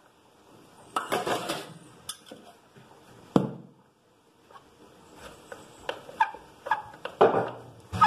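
Kitchen clatter of metal pots, pans and dishes being handled: scattered knocks and clinks, with one sharp ringing knock midway and a quicker run of clinks near the end.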